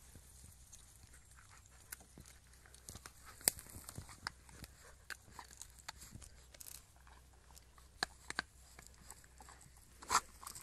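A Small Münsterländer leaping at and biting a pine branch: scattered snaps, crunches and rustles of twigs and needles, with its paws landing on sand and lichen. The sharpest snap comes about a third of the way in, and louder crunches come near the end.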